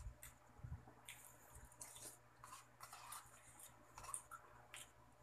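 Very faint chewing and wet mouth sounds from someone eating halo-halo, heard as scattered soft smacks and ticks.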